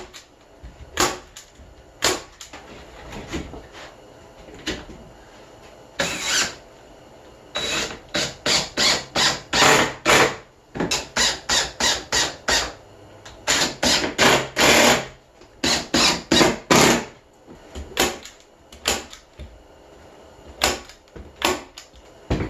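Staple gun fastening carpet to the wooden levels of a cat tree: single sharp shots a second or so apart, then quick runs of about three a second through the middle.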